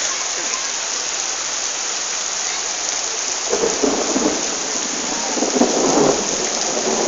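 Heavy rain pouring steadily. Two louder rumbling swells come through the rain, one around the middle and one near the end.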